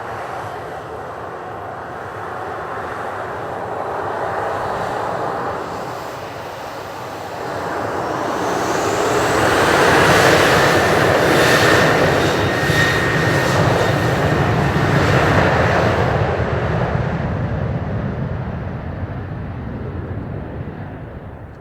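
Jet aircraft passing by: engine noise builds to a peak with a high whine a little before halfway, then fades away.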